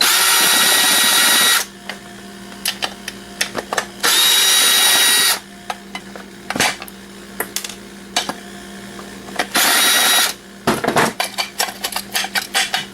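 A power drill-driver runs in three short bursts, backing out screws, the last one the shortest. Near the end come a quick series of light metallic clicks and clinks as the loosened parts are handled.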